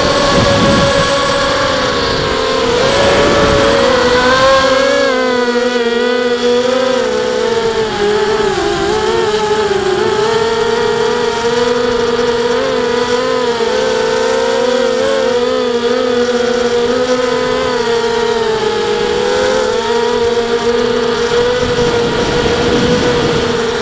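Miniquad drone's Emax 2280kv brushless motors and 5030 propellers whining, the pitch wavering up and down with the throttle, heard from the onboard camera. Louder rushing surges come near the start, about three to four seconds in, and again near the end.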